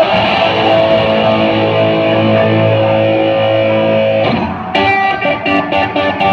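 Live hard rock played loud: an Explorer-style electric guitar holds a ringing chord for about four seconds. It then breaks into a rhythmic riff of short, repeated strokes.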